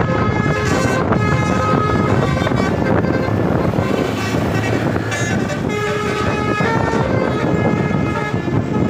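Bus 'telolet' musical air horn playing a tune of short notes that jump from pitch to pitch, over a steady low rumble of engine and road noise.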